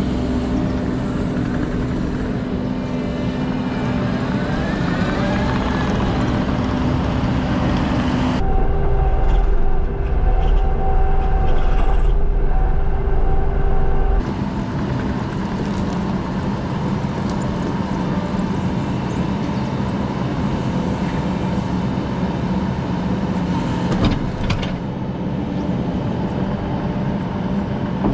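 Diesel engine of heavy equipment running steadily, its tone changing abruptly twice, about 8 and 14 seconds in.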